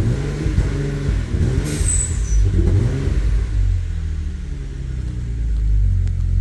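Ford 3.5 L EcoBoost twin-turbo V6 running roughly just after starting, its speed wavering up and down in the first half. It is running like shit after a makeshift soldered repair of the high pressure fuel pump's broken connector.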